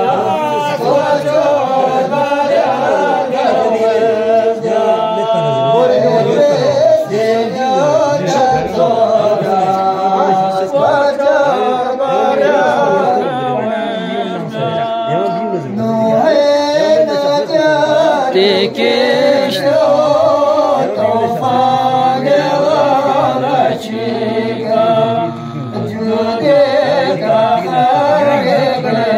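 Two men singing a devotional song together, unaccompanied, in long held and wavering notes.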